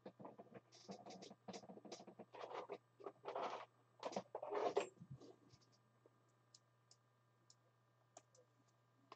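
Faint scraping and rustling of trading cards and their packaging being handled, in a string of short irregular bursts over the first five seconds, then only a few faint clicks.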